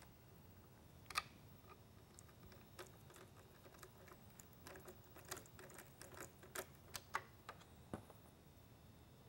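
Faint, irregular clicks and taps of plastic and metal as an LED lighthead module is fitted into a lightbar and a screw is worked with a hand screwdriver.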